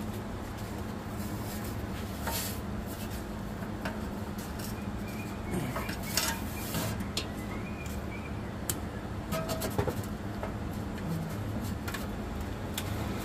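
Scattered light clicks and taps of hands handling a truck transmission's plastic electrical connector at its pass-through, over a steady background hum.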